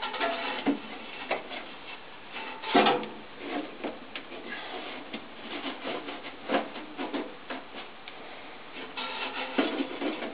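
Irregular knocks, clicks and scraping of sheet-metal parts as hands work inside the opened casing of an old e.l.m. leblanc GLM 5 wall-mounted gas boiler. The loudest knock comes about three seconds in, with a cluster of knocks near the end.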